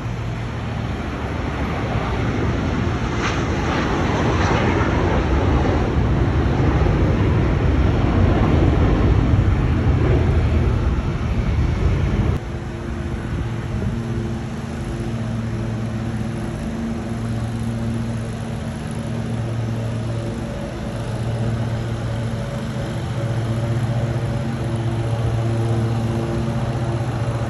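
An airplane passing low overhead: a loud rushing roar that builds to its peak about eight to ten seconds in. About twelve seconds in it cuts off abruptly, giving way to the steady engine hum of a stand-on commercial lawn mower, rising and falling a little in level as it mows.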